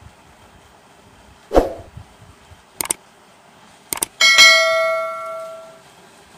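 Subscribe-button animation sound effects: a short swoosh about one and a half seconds in, two pairs of mouse clicks, then a notification bell chime that rings out for about a second and a half.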